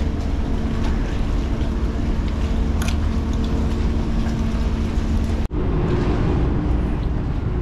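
A boat engine humming steadily over a low rumble of wind on the microphone, with a short tick about three seconds in. The sound drops out for an instant about five and a half seconds in, and a similar hum carries on at a different pitch.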